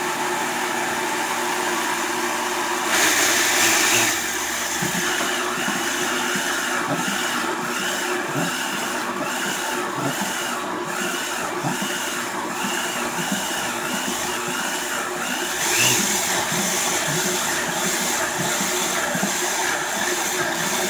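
A 19-year-old Vitamix blender running steadily, grinding a full jar of dry shredded unsweetened coconut in the first stage of turning it into coconut butter. It gets briefly louder about three seconds in and again near sixteen seconds.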